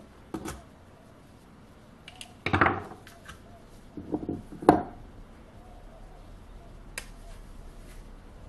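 Small clicks and taps of a screwdriver prying the battery cover off a digital micrometer and the battery coming out. There is a short scrape about two and a half seconds in and a sharp knock a little before the five-second mark, the loudest sound, as parts are handled and set down on a wooden bench.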